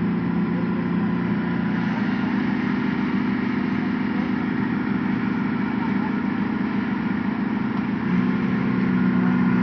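An engine running steadily, its pitch shifting up about two seconds in and again near the end.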